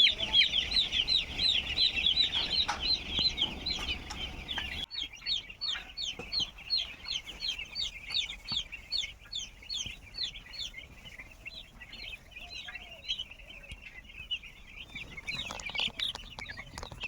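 A flock of broiler chicks peeping: short, high, downward-falling peeps, many overlapping, several a second. About five seconds in the sound cuts abruptly to a quieter take, and the peeping goes on more thinly.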